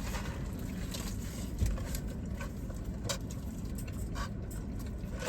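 Scattered small clicks, taps and rustles of food and takeout containers being handled while eating, over a low steady rumble.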